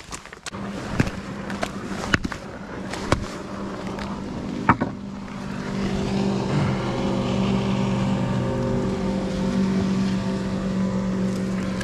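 A motorboat engine running steadily, growing louder about six seconds in, with a few sharp knocks, like footsteps on hard ground, in the first five seconds.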